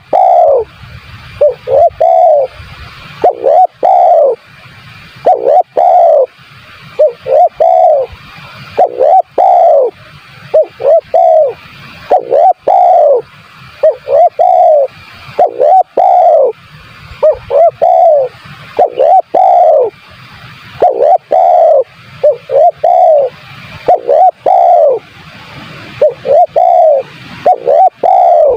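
Spotted dove cooing over and over: quick groups of two or three loud coos, each dropping in pitch, repeated every second or two.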